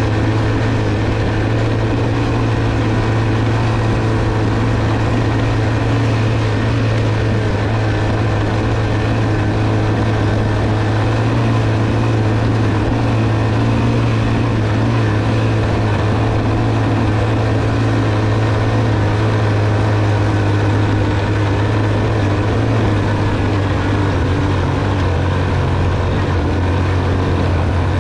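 Honda TR200 Fat Cat's air-cooled single-cylinder four-stroke engine running steadily under load, pulling the bike up a rocky climb.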